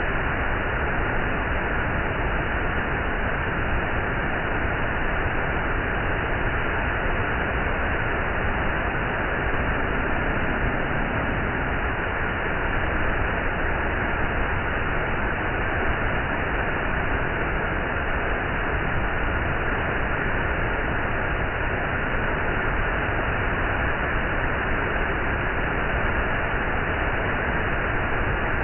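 Waterfall: water pouring down in a steady, even rush that stays at one level throughout.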